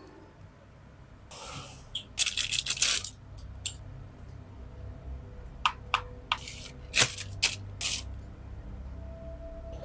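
Makeup packaging handled during an unboxing. A short rustle is followed by a quick run of crackling or tearing, then scattered sharp clicks and taps of small hard items.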